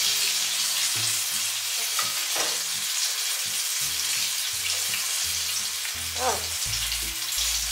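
Hot oil sizzling steadily as battered plantain fritters fry in a pan, with a wooden spatula scraping and stirring thick batter in a glass bowl.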